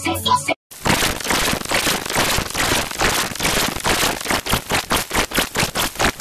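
Music that cuts off about half a second in. After a short gap comes a harsh, crackling digital distortion noise, a soundtrack mangled by an audio effect, pulsing several times a second.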